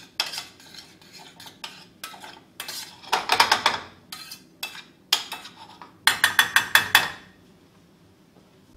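Spoon stirring garlic in butter in a small stainless steel sauté pan, scraping and clinking against the pan. About six seconds in comes a quick run of about eight sharp clinks.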